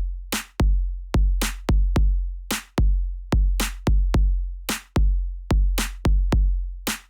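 Electronic drum-machine beat with no melody: deep, long-ringing bass kicks alternating with sharp, crisp snare-like hits.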